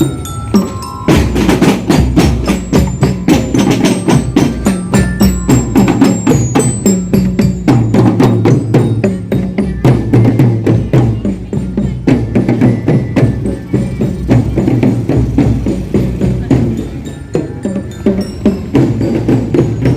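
Music with fast, dense percussion playing steadily.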